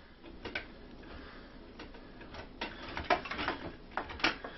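Small irregular clicks and taps of a screwdriver working against the plastic front panel of an APC UPS, removing a screw.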